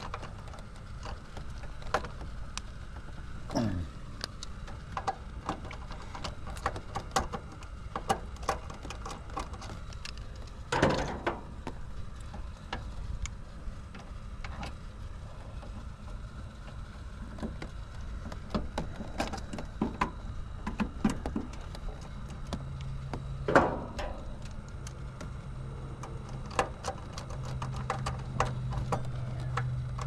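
Irregular clicks, taps and knocks of hand tools and parts being handled during work on an air-conditioner's wiring, with a few louder knocks. A low steady hum comes in about two-thirds of the way through and grows stronger near the end.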